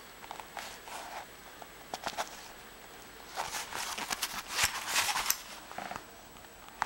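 Rustling and crinkling of the Korum Ruckbag XL's top flap and its clear plastic waterproof mesh pocket as a hand presses and handles them. The sound comes in short scattered bursts that grow busier and louder about halfway through.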